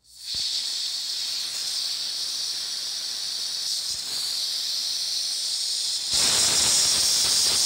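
Compressed air hissing out of the opened manual drain valve at the bottom of an air compressor tank: steady, then louder and fuller about six seconds in as the valve is opened further. The blowdown brings out only dry air, the sign that the added aftercooler is taking the moisture out.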